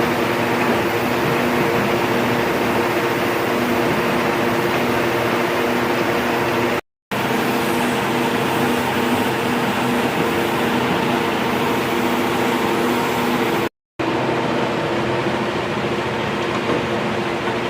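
Electric grinder running steadily as it grinds down a weld on a steel leaf spring, a constant whining hiss with several steady tones. It is broken twice by brief, abrupt drops to silence.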